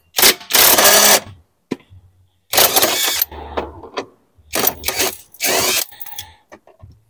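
Cordless impact wrench run in five or six short bursts, spinning a socket to back out the bolts that hold the car's dashboard.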